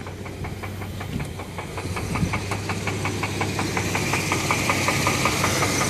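1996 Chevy Blazer's 4.3-litre V6 idling with a rapid, even knock, about seven beats a second, over the steady engine hum. The owner hears the knock only at a parked idle, not when revving or driving, and does not know its source.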